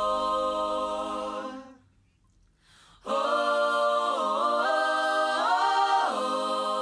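Background music of sustained, wordless choir-like voices holding chords. They fade out a couple of seconds in, fall nearly silent for about a second, then come back, sliding between notes before settling on a held chord.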